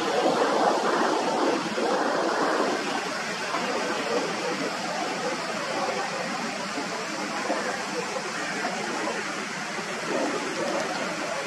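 Jet noise of a Boeing 737-800 passing overhead: a steady rushing sound from its CFM56 turbofan engines, strongest in the first few seconds and slowly fading.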